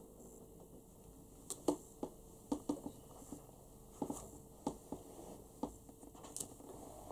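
Paper pages of a large book being handled and turned: a string of short, soft rustles and clicks.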